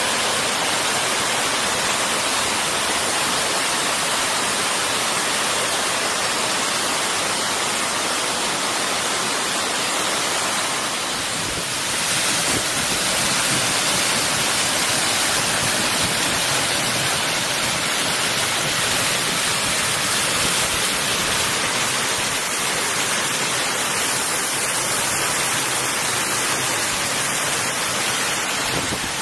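Water of a rocky stream rushing steadily as it cascades in small waterfalls over boulders. Its tone shifts slightly about twelve seconds in.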